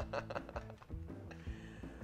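Background music with guitar and held low bass notes, with a few light clicks near the start.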